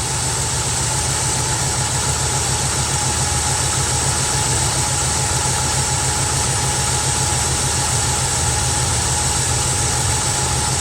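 Carbureted Mustang engine idling steadily with an even, rapid pulse. A replacement spark plug wire is fitted in place of one that was arcing and causing a misfire, and the owner hears it running a whole lot better.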